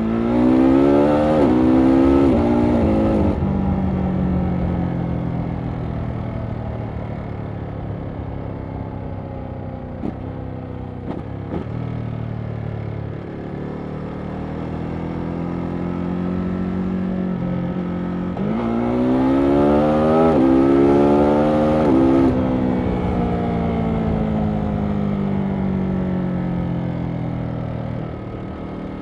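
Ducati Monster SP's 937 cc Testastretta V-twin under hard acceleration twice, at the start and again about two-thirds of the way through. Each time the pitch climbs steeply for three to four seconds, then cuts off suddenly, and the engine note eases and sinks slowly as the throttle is rolled off.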